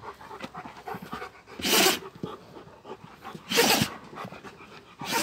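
Central Asian Shepherd (Alabai) dog sneezing twice, about two seconds apart, with quieter breathing between. Something in her left nostril is setting off the sneezes: a hair or saliva, as the owners suspect.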